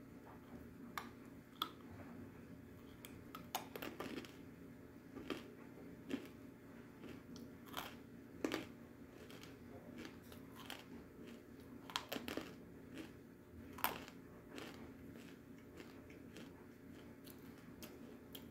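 Soft edible clay being chewed close to the microphone: quiet mouth sounds broken by irregular sharp crunches and clicks, which thin out over the last few seconds.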